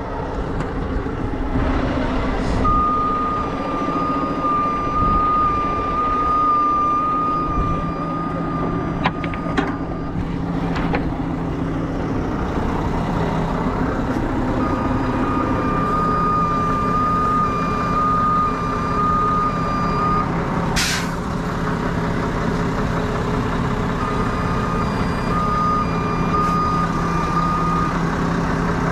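Heavy wrecker's diesel engine running steadily while a backup alarm beeps in three long runs. A short, sharp hiss of released air comes about 21 seconds in, and a few metallic chain clinks come around 9 to 11 seconds.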